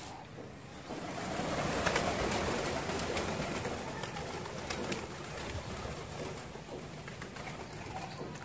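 A flock of domestic flying pigeons coming in to land, a rush of many wingbeats that swells about a second in, is loudest a second or two later, then eases off as the birds settle on the ground.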